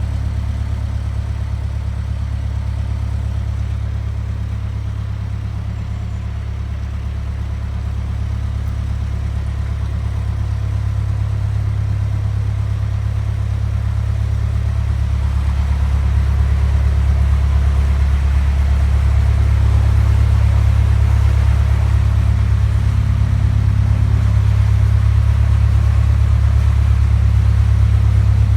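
Narrowboat's diesel engine running steadily at cruising speed, a low, even engine note that grows gradually louder over the second half.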